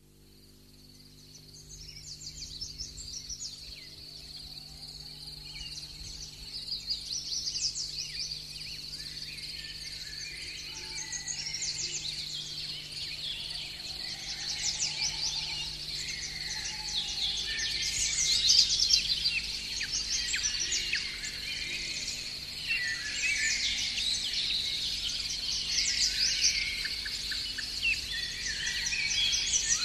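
A chorus of songbirds singing and chirping, fading in from silence at the start and growing louder. Low sustained tones of background music run underneath.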